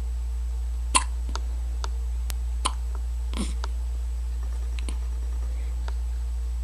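Hiccups: a sharp hiccup about a second in, then several fainter hiccups and clicks spaced irregularly over the next few seconds, over a steady low hum.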